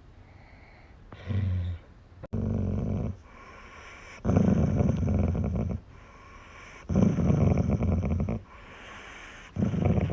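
A dog making low, rasping breaths in five long bursts about every two and a half seconds.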